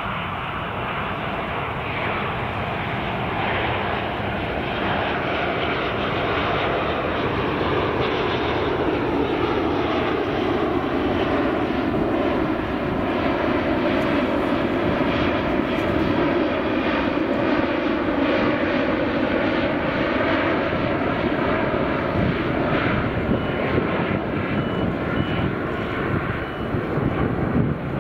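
Airbus A380 jetliner flying past under the power of its four jet engines: a steady, dense roar that grows gradually louder, with tones in it sweeping slowly downward as the aircraft goes by.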